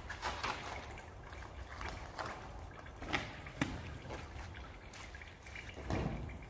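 A cleaning rag being washed out by hand in water, with irregular splashes, trickles and drips.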